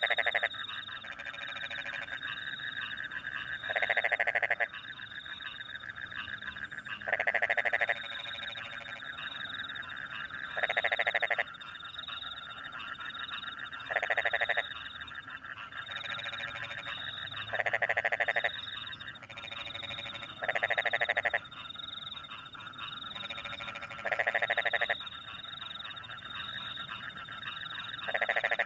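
Rice-field frogs calling in a dense, steady chorus, with crickets chirping high above it. One louder, lower frog croak lasting under a second cuts through regularly, about every three and a half seconds.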